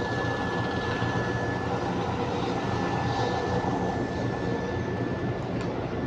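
Steady mechanical hum of a motorhome's hydraulic slide-out system pushing out the sofa and wardrobe slide, over the generator and air conditioners running. A thin steady whine stops shortly before the end.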